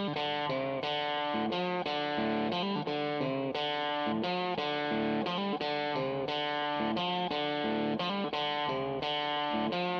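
Background music: guitar-led track with a distorted electric guitar playing a run of notes at a steady pace.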